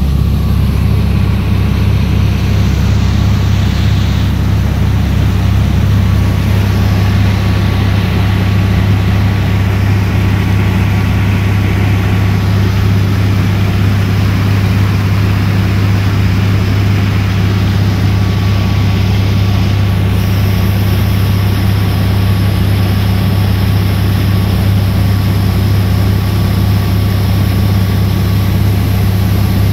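Small passenger boat's engine running steadily at constant speed, a loud unbroken low drone with a hiss over it.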